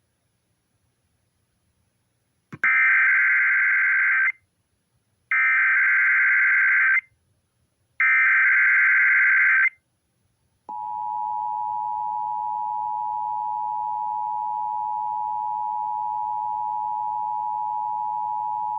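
Emergency Alert System tones from a radio's speaker. Three harsh, screeching bursts of SAME header data, each under two seconds with short gaps, are followed by the steady two-tone EAS attention signal, which starts about a second after the last burst and holds over faint hiss. They announce an EAS test, the start of a tornado drill and required monthly test message.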